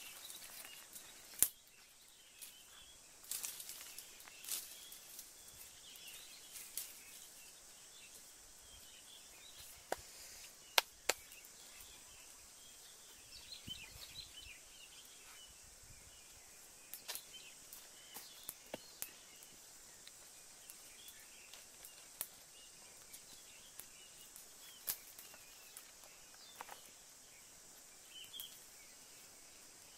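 Small twig fire crackling with sharp, irregular pops, over a faint steady high hiss and scattered faint chirps.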